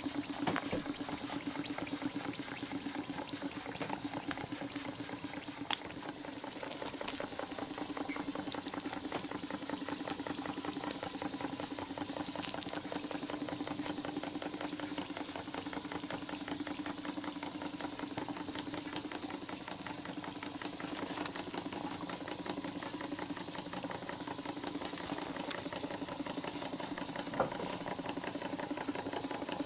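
Bassett-Lowke live-steam donkey engine running steadily, its small single cylinder turning the flywheel and puffing exhaust steam in a fast, even rhythm over a constant hiss.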